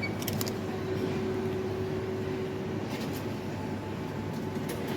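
Steady machine hum behind a café counter, with a held tone that stops about three seconds in and a few light clinks.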